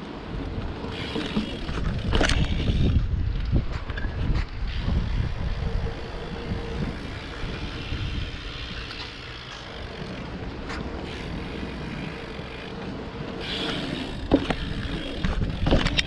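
BMX bike being ridden, heard from a chest-mounted camera: wind noise on the microphone over the rolling of the tyres, with a few sharp knocks from the bike. The loudest knocks come about two seconds in and near the end.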